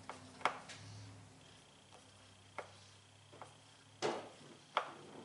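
Small shop vac assembly parts being handled at the vac's drum: about six scattered sharp clicks and knocks, the loudest about half a second in and a pair near the end, over a faint low hum.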